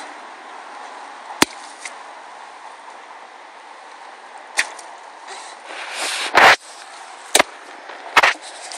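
A steady background hiss broken by a few sharp knocks and heavier rubbing thumps, the loudest about two-thirds through. The knocks are handling noise on the phone's microphone as it is turned around in the hand.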